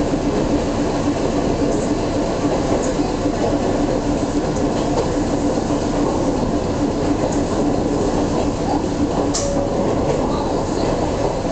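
Ohmi Railway MoHa 220-series electric car running at speed, heard from inside the car: wheels rumbling on the track under the steady hum of its nose-suspended (tsurikake) traction motors and gears. The hum stops about nine seconds in and a higher tone takes over briefly. A few faint clicks come through the noise.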